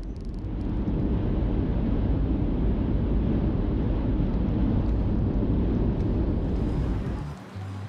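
A steady low rumble with no clear pitch, swelling up about a second in and dropping away near the end.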